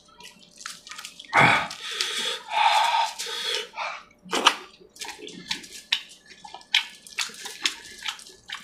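Close-miked wet eating sounds: fingers squelching through chicken curry and a mouth chewing with many wet clicks and smacks. There is a longer, louder wet stretch from about one and a half to nearly four seconds in.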